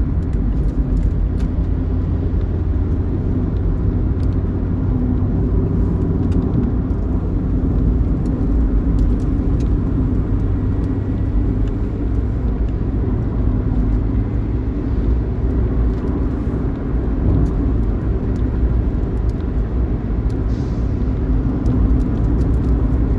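Steady low rumble of engine and road noise, heard from inside a vehicle travelling at highway speed, with a faint steady whine.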